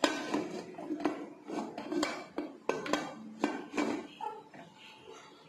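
Aluminium Premier pressure cooker lid, closed without its rubber gasket or whistle, being turned and lifted off: a quick run of metal clanks and scrapes that fades about four seconds in.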